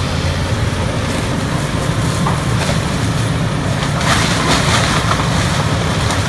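Tracked excavator's diesel engine running steadily under load as it tears through a wood-framed house. Cracking and crashing of breaking wood and debris come now and then, most densely about four seconds in.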